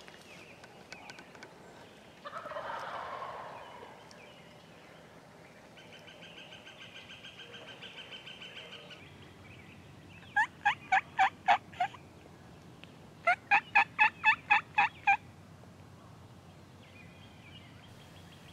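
Turkey yelping: two runs of loud, evenly spaced yelps, about seven notes, then after a short pause about ten more. A fainter pulsing sound comes a few seconds before them.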